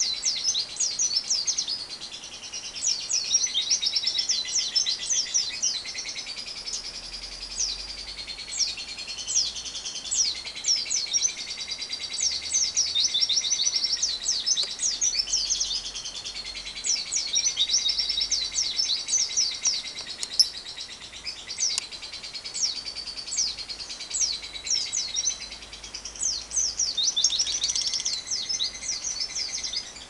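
Small birds chirping in a fast, high-pitched twitter: a continuous stream of quick falling chirps, with short lulls.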